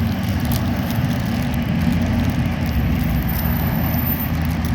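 Steady low rumble of outdoor noise, with a few faint clicks.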